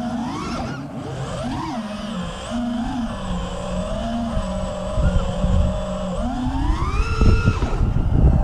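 Brushless motors and propellers of a 5-inch FPV racing quadcopter (Apex Racing Hornet 2306 motors, HQ Ethix P3 props) whining, the pitch rising and falling with every throttle change. About six seconds in, the whine climbs steeply as the quad punches out to height, then drops off suddenly near the end, with wind rumble growing from about five seconds in.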